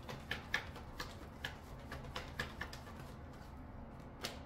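A deck of oracle cards being shuffled by hand: a string of light card snaps and taps, about two or three a second, thinning out after about three seconds with one last tap near the end.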